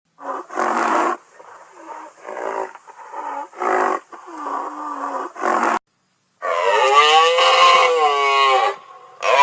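Rhinoceros calling: a string of short, rough calls, then, about six and a half seconds in, one long drawn-out call that rises and falls in pitch, with another starting near the end.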